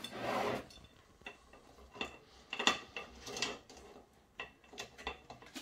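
Stainless-steel adjustable cake ring being loosened and opened around a cake: a short metallic scrape, then a string of separate sharp metal clicks.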